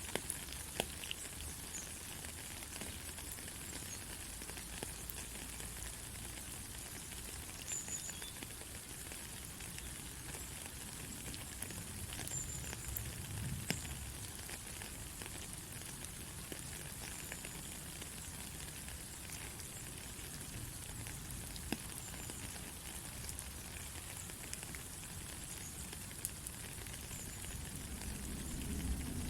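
Steady rain falling as a fine, even hiss, with scattered drops ticking. A low rumble starts to build near the end.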